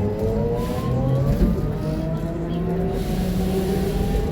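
Diesel engine and drivetrain of a Scania K270UB bus pulling under load, with a whine whose pitch climbs slowly and steadily as the bus gathers speed.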